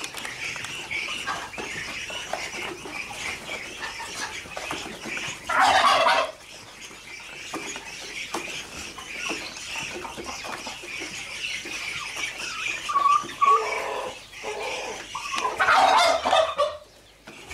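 A bunched flock of six-week-old muscovy ducklings peeping continuously, with two louder, harsher bursts of calling, about six seconds in and near the end.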